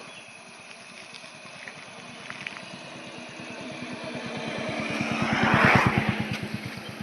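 A motor vehicle approaching and passing close by, its engine growing louder to a peak about six seconds in, then fading quickly.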